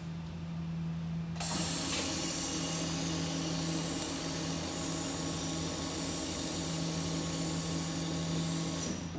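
Industrial sewing machine stitching the side hem of a lined curtain, starting about a second and a half in and running at an even high speed with a high-pitched whine, then stopping suddenly near the end. A steady low motor hum runs underneath.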